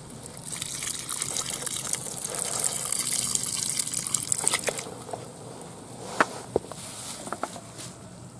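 Muddy water sloshing and gushing in a bucket, tipped and stirred by hand, for about four seconds, as a freshly caught eel is put in with the others. Then the water settles and a few short sharp clicks follow.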